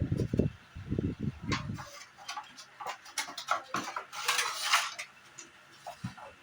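Handling noise from fitting the styrofoam piece onto an air conditioner's evaporator. First a run of dull thumps, then scattered clicks and knocks, and a stretch of rubbing or scraping about four seconds in.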